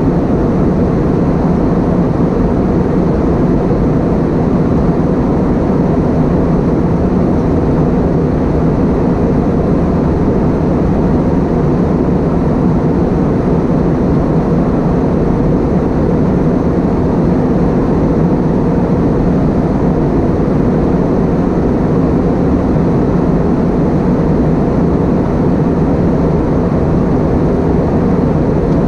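Steady cabin noise inside an Airbus A320-232 airliner: the constant roar of its IAE V2500 engines and airflow, with a low hum holding a few steady tones and no change in level.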